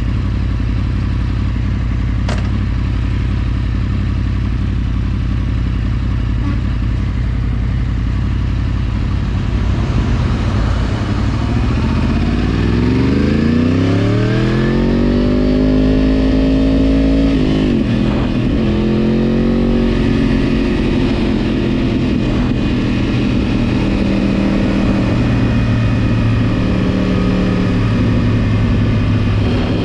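Yamaha R1's inline-four engine running steadily, then accelerating with its pitch rising over several seconds about a third of the way in, dipping briefly once, and holding at a higher pitch with small changes.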